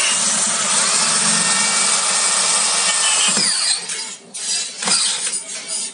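Corded Bosch hand drill boring into stainless steel with a greased 8 mm bit, widening a 3.5 mm pilot hole; the bit grinds steadily through the metal for about three and a half seconds. The drill is then stopped and run again in a few short spurts before it stops near the end.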